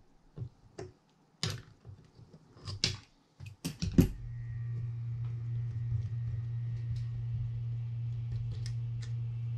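Scattered metallic clicks and knocks of a wrench working the handle nut of a fishing reel, ending in a sharp clack about four seconds in as the wrench is set down. From that moment a steady low hum runs on.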